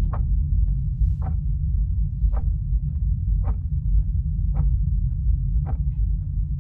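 A low, steady rumbling drone with a soft tick sounding regularly, a little slower than once a second.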